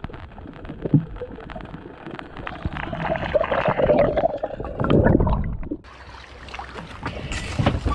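Muffled underwater gurgling and bubbling with scattered clicks from a spearfisher swimming. Near the end the sound suddenly opens out as it comes above the surface, with water splashing.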